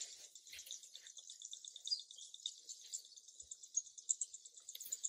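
Faint, steady high-pitched chirping of outdoor wildlife, fast and evenly repeated.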